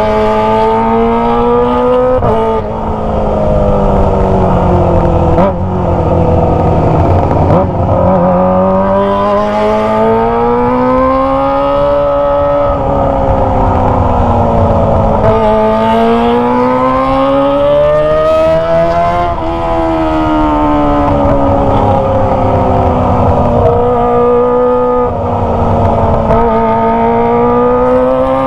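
Kawasaki ZX25R's 250 cc inline-four engine through a Toce aftermarket exhaust, revving as the bike is ridden. The pitch climbs and falls over and over, with several sudden short drops as it changes gear.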